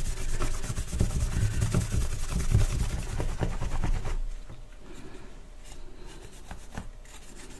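A cloth with Brasso rubbed in rapid back-and-forth strokes over a discoloured perspex radio dial glass, polishing it by hand. The rubbing stops about four seconds in, leaving only faint handling ticks.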